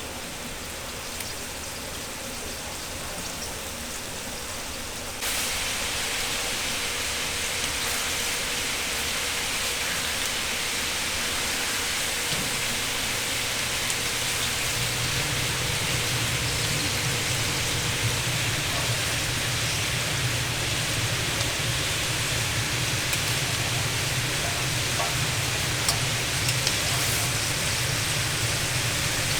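Tteokgalbi meat patties sizzling on a hot grill: a steady hiss that grows louder about five seconds in. A low steady hum joins about twelve seconds in.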